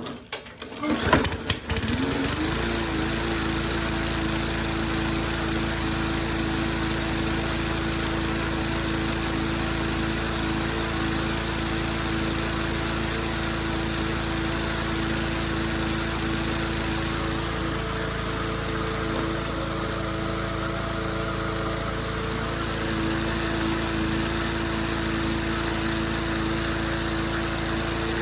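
MTD walk-behind lawn mower's small engine pull-started: a few sharp knocks as it catches about a second in, the pitch rising briefly, then it runs steadily at speed.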